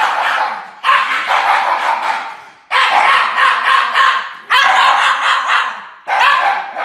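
A Shiba Inu howling in a run of long, wavering howls, about five in a row, each a second and a half to two seconds long with short breaks between them.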